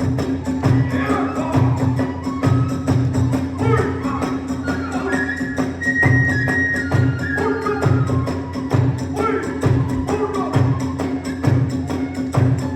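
Kagura ensemble music: a steady beat on the drums with fast clashing of small hand cymbals, over a steady low held tone, and a high flute melody in the middle.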